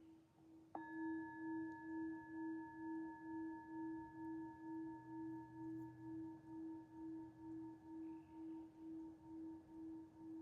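A singing bowl is struck about a second in, while its low tone is still ringing from before. The tone rings on with a slow, even wobble, about two pulses a second, and its higher overtones fade slowly.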